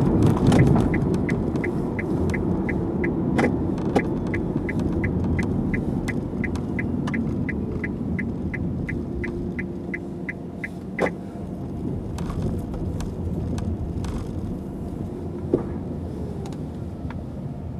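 Tyre and road rumble inside a Nissan Leaf electric car, fading as the car slows. Over it the turn-signal indicator ticks in short, evenly spaced high beeps, about three a second, and stops about eleven seconds in. A few sharp knocks come from bumps.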